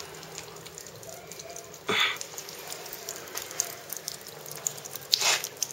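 Water trickling and splashing as it runs into a plastic aquaponics grow bed, with many fine droplet ticks. There are two short, louder rushing sounds, one about two seconds in and one near the end.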